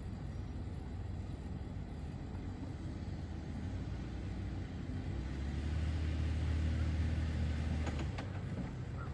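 Jeep Wrangler's engine running at low speed as it crawls through a deep sand rut, pulling harder and louder for a couple of seconds from a little past halfway, then easing back.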